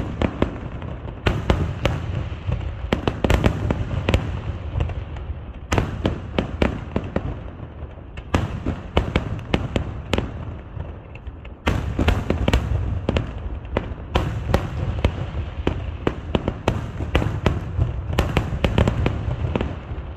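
A fireworks display: dense volleys of exploding shells, many sharp bangs in quick succession over a continuous low rumble. There is a brief lull a little past halfway before the bangs pick up again.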